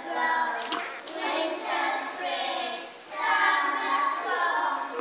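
A group of young children singing a song together in phrases.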